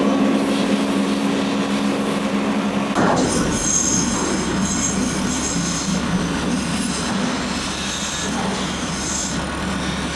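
A belt-driven buffing wheel running with a steady hum as a knife is held against it. About three seconds in, this gives way to a bench grinder's abrasive wheel grinding a steel knife blade, a steady scraping hiss as the blade is pressed to the wheel and throws sparks.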